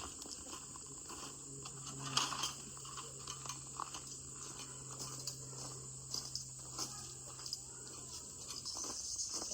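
Outdoor ambience: a steady high-pitched insect drone, with scattered clicks and rustles of things being handled, the loudest about two seconds in, and a faint low hum through most of it.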